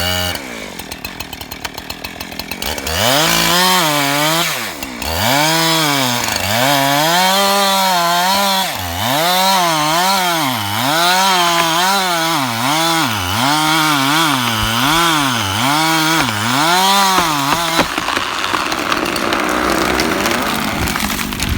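Chainsaw idling with a rapid putter, then throttled up about three seconds in and run hard, its pitch dipping and recovering about once a second as it works through a tree. Near the end the steady pitch gives way to a rougher, noisier sound.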